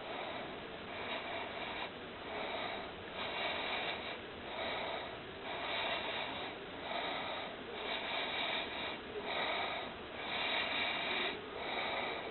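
Snoring: one rasping noisy breath about once a second, repeated steadily throughout.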